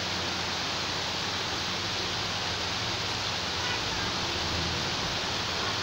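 Steady rushing of floodwater from an overflowing drain, an even, unbroken hiss.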